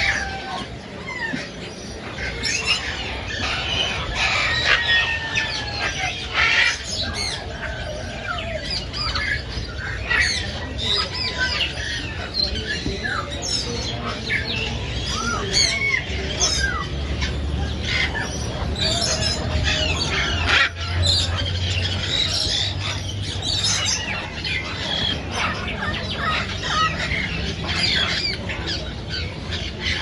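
Many caged birds calling at once: a dense, steady din of short chirps, whistles and squawks overlapping throughout, over a low steady hum.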